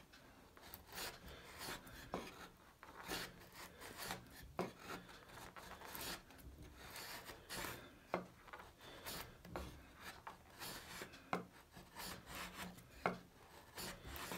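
Quiet scraping strokes of a freshly sharpened old Ace Hardware steel chisel pushed by hand through pine, paring off shavings. The strokes come about once a second, with a few sharper clicks among them.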